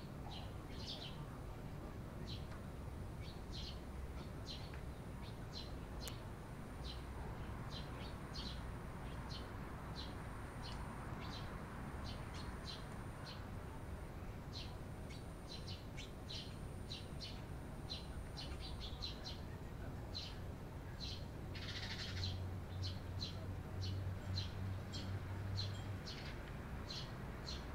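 Eurasian tree sparrows chirping: a steady run of short, high chirps, two or three a second, with one louder call about two-thirds of the way through.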